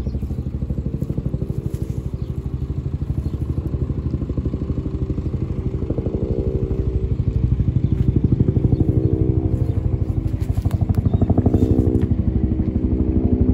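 A large engine idling close by with a steady, fast throbbing beat, a little louder in the middle. It is the tow truck's engine running to charge the Civic's dead battery through jumper cables.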